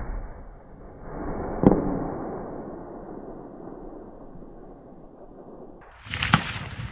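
The fading report of a scoped rifle shot on an open range, then about a second later a fainter gunshot with a sharp crack and a long rolling tail. Near the end a louder sound with a sharp crack starts abruptly.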